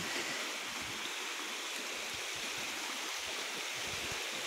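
River water rushing over rocks in a steady, even flow.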